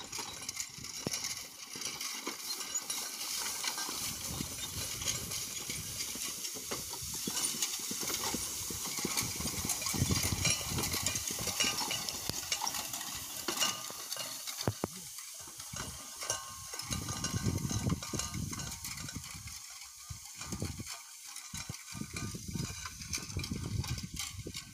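Horse-drawn hay rake working through dry hay: a steady rustling hiss of tines sweeping the hay, with rattling clicks from the rake's metal frame and the thud of the horses' hooves. It grows fainter in the last few seconds as the rake moves away.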